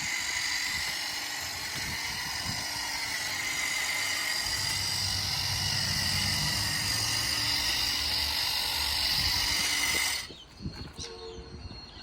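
Ego cordless telescopic hedge trimmer running and cutting through a hedge: a steady electric motor whine with blade chatter, heavier in the low end from about four seconds in, then it shuts off abruptly about ten seconds in, followed by a few faint clicks.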